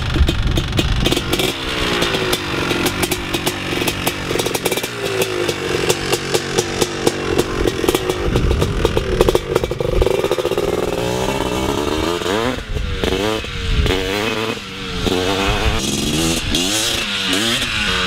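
Three-wheeled ATV's engine running as it is ridden, its pitch climbing and dropping in repeated revs, with quicker, sharper rev-ups in the second half.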